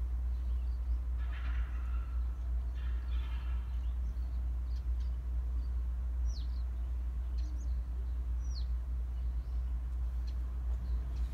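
Outdoor ambience under a steady low rumble. Two short harsh rattling calls come near the start, then scattered thin, high bird chirps, a couple of them sliding down in pitch.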